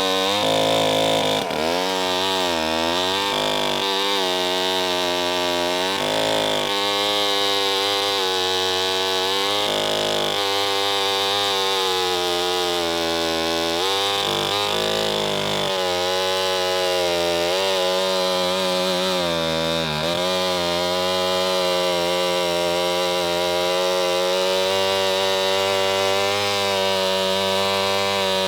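A Homelite C-91 chainsaw's 5.2 cubic inch two-stroke engine running loud and steady, its pitch dipping and coming back up several times in the first twenty seconds, then holding level.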